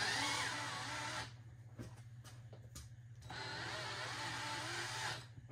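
Cordless drill running in two short bursts, the first about a second long and the second about two seconds, its motor pitch rising and falling as it works at the sheet-metal cabinet.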